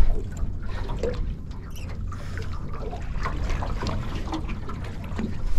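Water splashing and trickling alongside an aluminium tinny, with scattered light knocks and a steady low rumble underneath.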